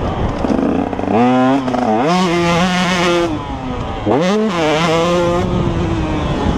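Motocross motorcycle engine revving up twice, about a second in and again about four seconds in. Each time the pitch climbs and then holds steady at a high note before dropping back.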